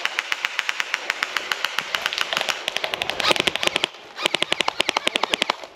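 Airsoft electric guns firing full-auto, a fast rattle of sharp clicks, with a brief pause about four seconds in before another long burst.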